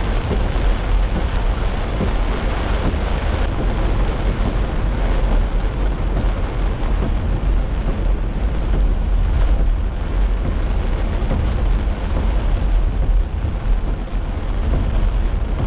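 Heavy rain pelting a moving car, heard from inside the cabin as a loud, steady wash of noise over a constant low rumble.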